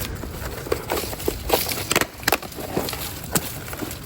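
A damaged plant pot and potting soil being handled: scattered crackles and light knocks, about a dozen irregular clicks.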